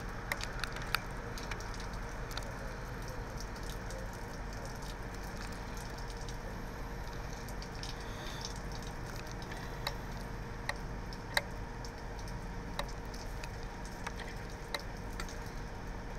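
Heavy rain falling: a steady, even hiss with scattered sharp ticks of drops striking close by.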